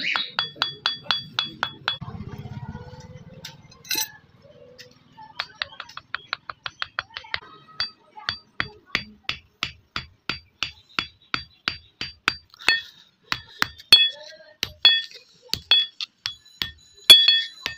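Light hammer taps on the end of a wooden knife handle, driving it onto the hot tang of a small forged blade: quick even strikes about three a second, each with a short metallic ring, the hardest few near the end.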